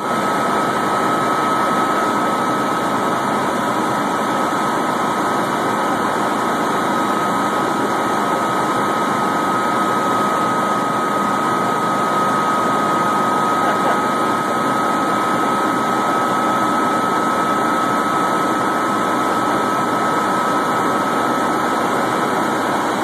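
Helicopter cabin noise in flight: the engine and rotor give a steady, unchanging din, with a constant high whine running through it.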